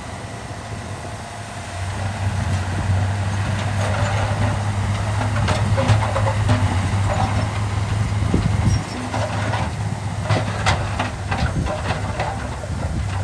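Komatsu bulldozer's diesel engine running steadily, growing louder about two seconds in, with metallic clanking and squeaking from its crawler tracks through the middle of the stretch.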